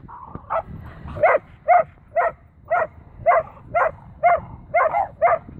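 A whippet barking in a steady run of about ten barks, roughly two a second, at other dogs wrestling: protective barking, which her owner puts down to her thinking the other dogs are being hurt.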